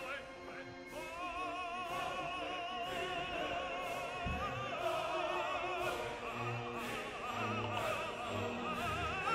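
Soft background classical music: a voice singing long held notes with a strong vibrato over a sustained accompaniment.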